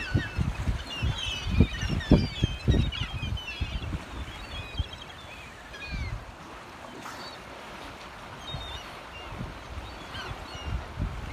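A flock of gulls calling, many short overlapping cries, busiest in the first few seconds and thinning out to scattered calls after that. Several loud low rumbling bumps come in the first three seconds.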